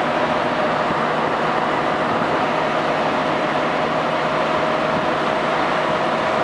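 Steady road and engine noise of a moving car, heard from inside the cabin, with a thin steady hum running through it.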